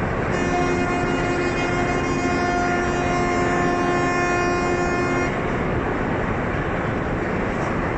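A ship's horn sounds one steady blast of about five seconds over a constant rushing background noise.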